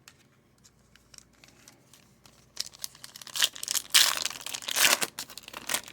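A hockey card pack's wrapper crinkling and tearing as it is opened. It starts about two and a half seconds in, after a few light clicks.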